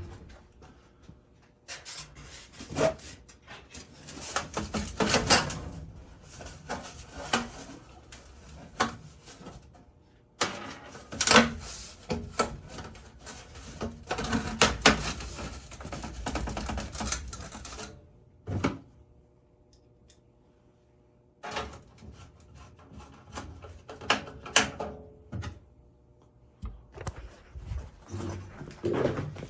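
Irregular metallic clanks, knocks and rattles of sheet-metal boiler flue pipe being handled and fitted back together, with a quiet pause about two-thirds of the way through.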